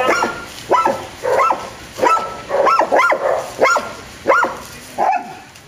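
Dog barking repeatedly, about eight short barks each rising then falling in pitch, growing weaker near the end.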